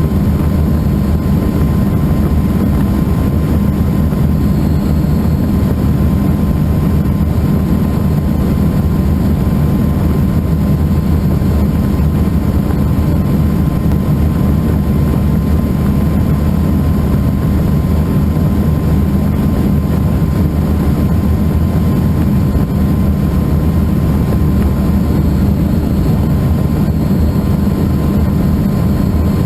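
Helicycle kit helicopter in steady cruise, its Solar T62T-32 turbine engine and rotor heard from the pilot's seat: a loud, even, deep drone with a thin steady whine above it.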